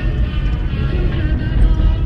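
Background music with a steady low rumble beneath it.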